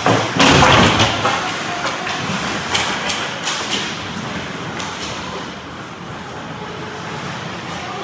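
Ice hockey play near the net: skates scraping and carving on the ice, with a loud burst of noise about half a second in and a few sharp knocks of sticks or puck around three seconds in.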